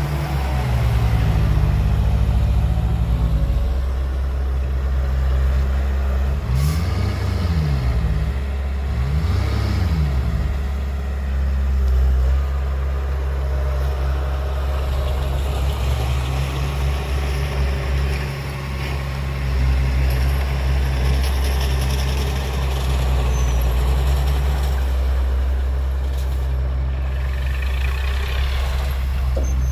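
Heavy construction vehicle's diesel engine running steadily, its pitch dipping and rising a few times as it revs, about a quarter of the way in.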